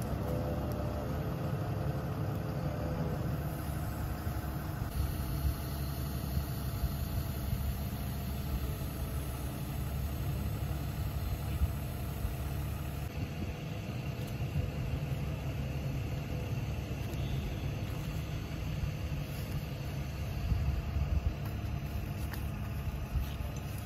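Diesel engine of a 16-ton rough-terrain crane running steadily at low revs, a continuous low rumble.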